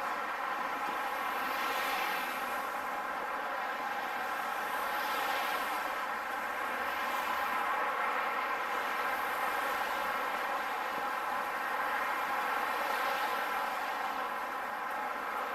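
Steady noise of busy road traffic, swelling gently as vehicles pass every few seconds.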